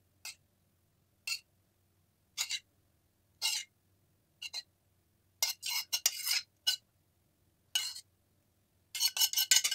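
Metal spoon scraping and clinking against a stainless-steel pan as tomato sauce is scooped out: short separate strokes about once a second, then quicker runs of them about five and a half seconds in and again near the end.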